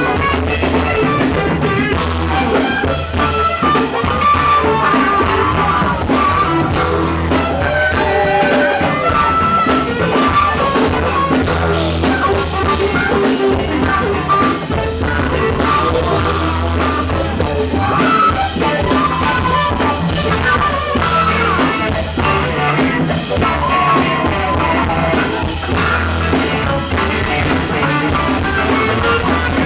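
A funk band playing live through a club PA: drum kit, electric bass, guitar and keyboards keep up a steady groove, while a voice or horn slides between notes above it.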